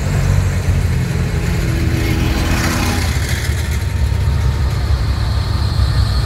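Large farm tractor diesel engines running close by as tractors drive past in a line: a loud, steady, low rumble.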